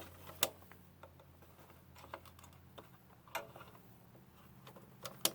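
Scattered sharp clicks and taps as the switch on the bottom of an RV propane furnace is pressed and fiddled with, the loudest about half a second in and a pair close together near the end, over a faint steady low hum. No fan comes on: the switch doesn't work.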